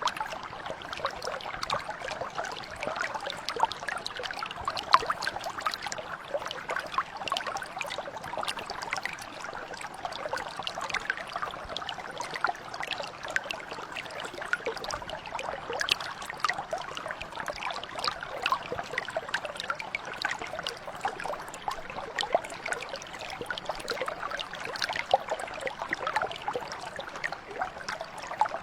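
Small mountain brook flowing steadily, a continuous babble dotted with many tiny splashes and gurgles.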